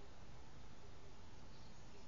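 Quiet outdoor ambience: a steady low hiss with a few faint, short bird chirps.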